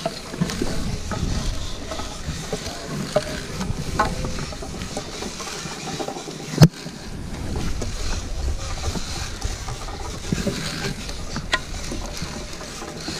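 Wind rumbling on the microphone, with scattered clicks and knocks from harness gear and one sharp knock about six and a half seconds in.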